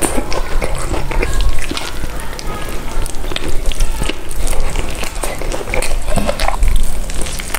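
Close-miked eating sounds: a person chewing and biting, with a dense run of crisp crackles and clicks.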